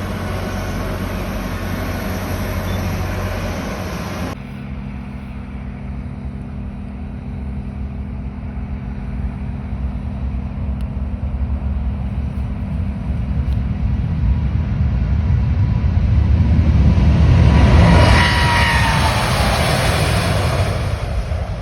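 Jet engines of a Boeing 787-9 Dreamliner passing: the roar builds steadily, peaks with a falling whine about eighteen seconds in, then eases off. A different steady roar before it is cut off sharply about four seconds in.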